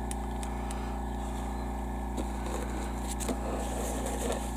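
Airbrush compressor running with a steady hum, while a paper towel rustles and rubs against the airbrush's colour cup as it is wiped out, mostly in the second half.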